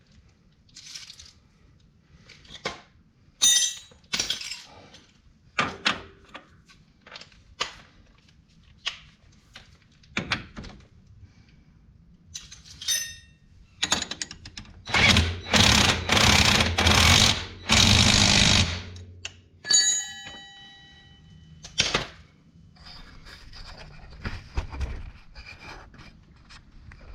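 Tools knocking and clanking against metal parts, some clanks ringing briefly, while a rear shock is bolted onto a Polaris Ranger XP. About halfway through, a power tool runs in four or five short loud bursts.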